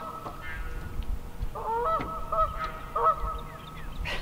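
Geese honking: a run of about four short honks, starting about a second and a half in.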